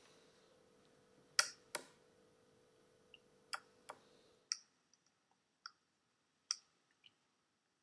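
Spektrum DX7s radio-control transmitter's switches being flipped: a scattered series of about eight short, sharp clicks, the loudest two a little over a second in, as the dual-rate and expo settings change.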